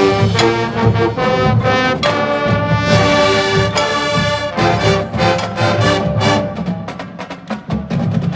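High school marching band playing: the brass section sounds sustained chords over rhythmic percussion hits, softening briefly near the end.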